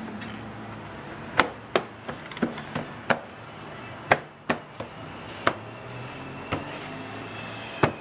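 About ten sharp, irregularly spaced knocks and snaps as a car's interior door trim panel is pressed and tapped onto the door, its plastic retaining clips seating.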